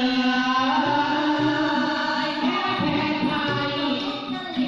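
Several voices singing a Thai central-region folk song together, holding long melodic notes that glide between pitches.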